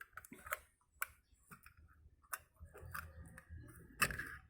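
Sharp metallic clicks and light scraping from a Zippo butane torch insert being worked into its metal case, several separate clicks with handling noise between.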